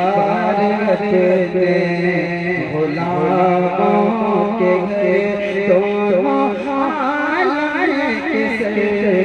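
A man singing a naat (Urdu devotional poem) solo into a microphone in long, ornamented melismatic phrases, the pitch gliding up and down, over a steady low drone.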